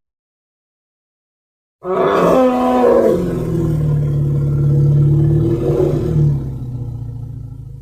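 A single long triceratops roar sound effect, starting suddenly about two seconds in after silence, holding a deep steady pitch, then slowly fading near the end.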